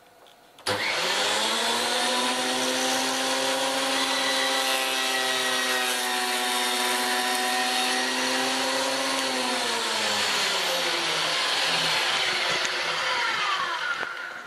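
Fujiyama PP9012 benchtop thickness planer switched on, its motor and cutterhead spinning up within a second to a loud, steady high whine with heavy hiss as a rough wooden board is planed. The pitch drops a little about ten seconds in, and the sound dies away near the end.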